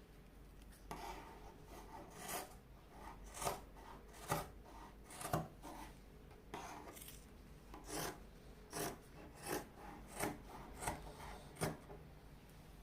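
Scissors being sharpened with a DIY trick in place of a whetstone: a dozen or so short, gritty scraping strokes, roughly one a second.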